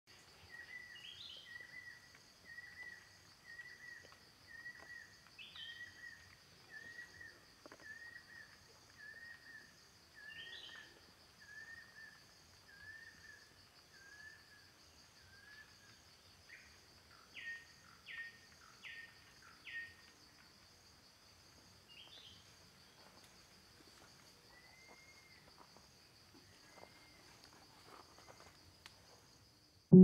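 Banded kingfisher song: a long series of mellow whistles, about one a second, slowly falling in pitch and fading away over about fifteen seconds. Under it runs a steady, pulsing, high insect drone, and a few short chirps from other birds come later.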